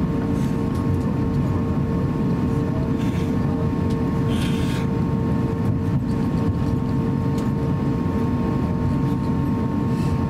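Cabin noise inside an Airbus A350-900 taxiing with its Rolls-Royce Trent XWB engines at idle: a steady low rumble with a thin, steady whine over it.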